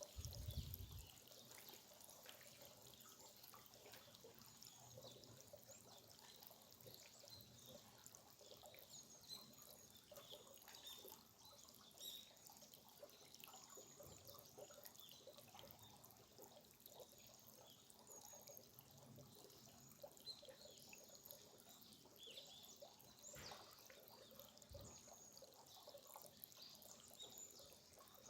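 Faint trickling and dripping of a small stream, with scattered small drips. A low rumble dies away in the first second.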